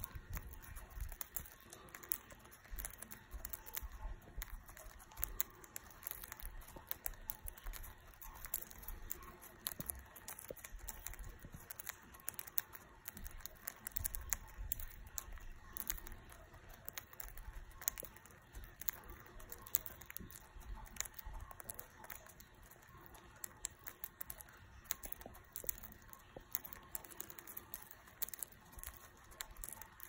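Two budgerigars eating from a dish of pellets: a steady stream of small, irregular clicks and crunches as their beaks peck at and crack the pellets.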